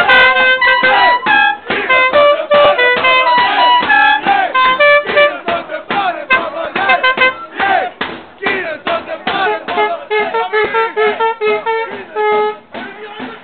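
A brass trumpet playing a fast tune of short, steady notes among fans in the stands, who shout and chant over it. The playing stops near the end.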